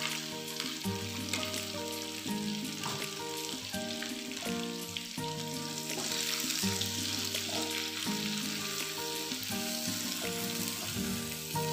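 Blended gravy purée sizzling and bubbling in hot butter and oil in a frying pan, stirred with a silicone spatula near the end. Soft background music with changing notes plays under the sizzle.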